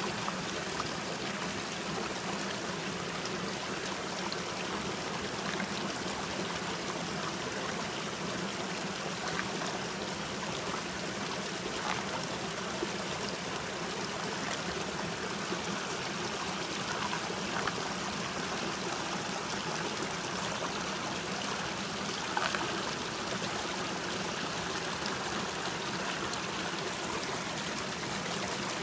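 Shallow creek water running and trickling steadily over rocks, with a few faint brief sounds on top.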